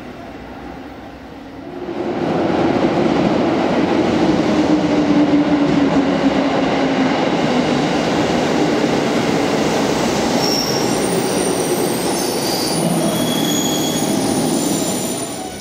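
JR East 205 series 3100 electric commuter train pulling into an underground station platform. It grows suddenly loud about two seconds in as it comes alongside, with a low tone that falls as it slows. High-pitched wheel and brake squeals join in the last few seconds as it brakes to a stop.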